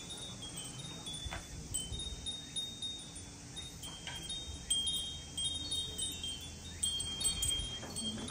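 Wind chimes tinkling: many short, high ringing notes at irregular moments over a low background hum.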